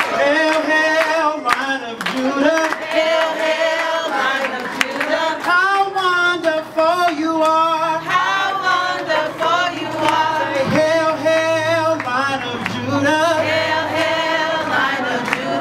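A group of men and women singing a song together.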